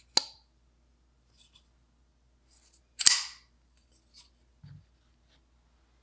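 Maxace Mamba folding knife being handled: a sharp click at the start, then about three seconds in a loud snap as the blade flips open and locks. A few light ticks follow, and a soft thud near the end as the knife is set down on the mat.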